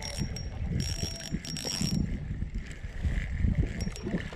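Spinning reel being cranked to retrieve line, its gears whirring in spurts with a thin high whine, loudest in the first two seconds.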